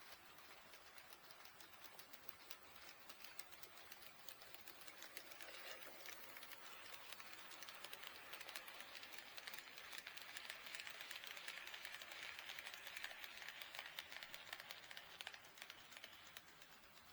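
Faint HO scale model train running past on track, with dense rapid clicking of wheels over the rails and a rolling hiss that swells to a peak midway and then fades as it passes.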